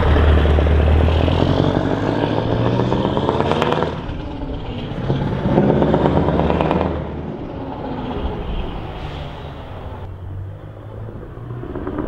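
Scania R580's V8 engine on an open-pipe exhaust accelerating past and pulling away. The revs climb and cut off sharply about four seconds in with a short crackle, climb again and drop off near seven seconds, then the engine runs more quietly as it moves off.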